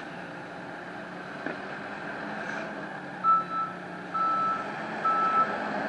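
A heavy construction vehicle's reversing alarm starting about three seconds in, short single-pitch beeps about once a second, over the steady running of its diesel engine.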